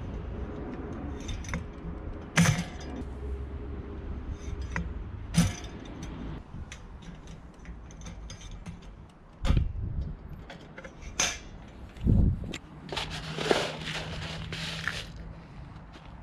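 A metal wire cage bird feeder being handled while suet fat balls are dropped into it: a run of sharp knocks and clatter, about six in all, with rustling a little before the end.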